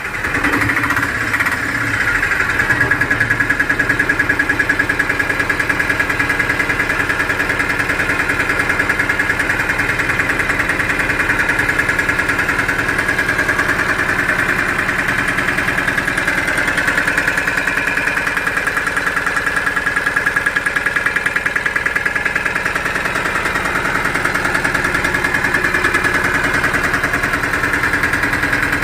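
Piaggio Ape Classic auto-rickshaw's 435 cc single-cylinder diesel engine idling steadily with an even, rapid beat.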